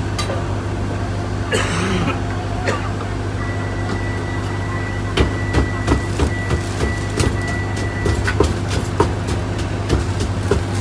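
Large wooden pestle pounding in a clay mortar, bruising Thai mango salad ingredients, giving irregular dull thuds over a steady low hum.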